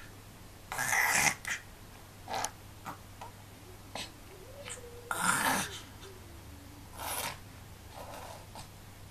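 A baby gnawing on a teething biscuit: short breathy huffs and snuffles, with small wet mouth clicks and lip smacks between them, and a brief soft vocal murmur about five seconds in.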